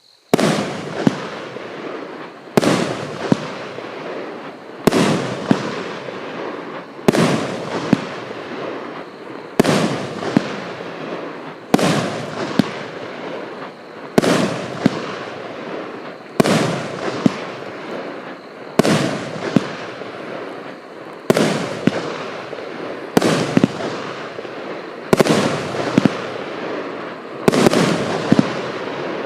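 A 60-shot, 29 mm moulded firework cake firing its tubes in sequence: a sharp bang about every two seconds, most with a weaker second pop about a second later, each trailing off in a fading hiss of noise.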